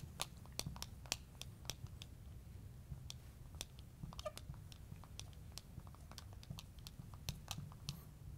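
Faint, irregular ticks and taps, about two or three a second, of a marker tip striking and dragging on a glass writing board as words are written.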